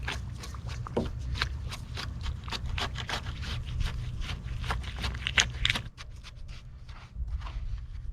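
Quick irregular rustling and crackling, several clicks a second, that thins out about six seconds in, over a steady low rumble.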